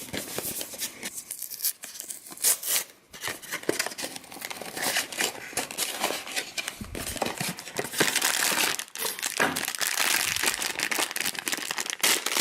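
Packaging of a Funko Mystery Minis blind box being opened by hand: dense crinkling and tearing of the foil bag around the vinyl figure, busier and louder in the second half.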